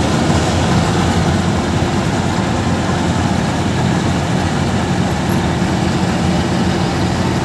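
Kartar Crop Cruiser combine harvester running while it cuts ripe paddy: the loud, steady drone of its diesel engine and threshing machinery.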